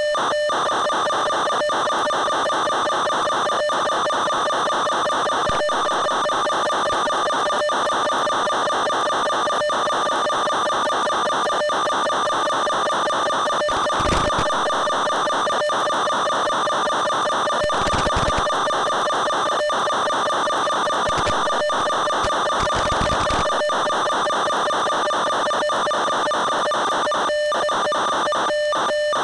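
Steady buzz at a fixed pitch with a stack of overtones, from the onboard audio of an FPV plane flying at constant throttle, carried over its analog video link. It is broken by frequent brief dropouts, with a few short low rumbles in the middle.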